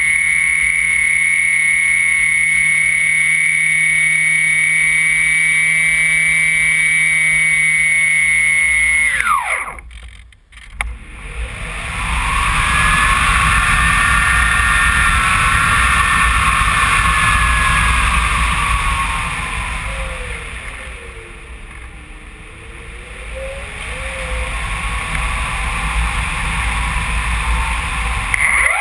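Electric motor and propeller of a HobbyKing Phoenix 2 m powered glider, heard from a camera on the airframe: a steady high whine that winds down sharply about nine seconds in as the motor is cut. Then air rushes past the gliding airframe, swelling and fading with airspeed. Just before the end the motor spins up again with a quickly rising whine.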